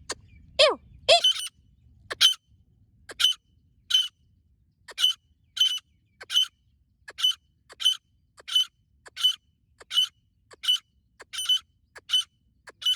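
Female grey francolins (teetar) calling. A few lower, falling notes in the first second or so, then a steady run of short, sharp, high-pitched calls repeated about every two-thirds of a second.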